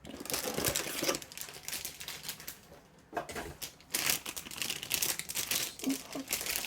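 Rapid clicking and rustling from objects being handled, a dense run of small clicks and crinkles that comes in waves.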